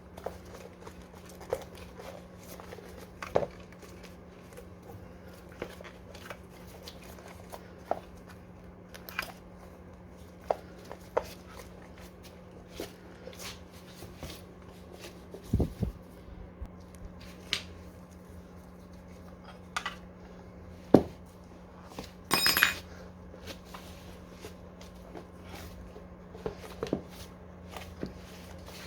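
Hand tools and metal scooter parts being handled at a workbench: scattered clicks, knocks and light rustling over a steady low hum. The loudest moments are a sharp knock about 21 seconds in, followed at once by a short run of ringing metallic clinks.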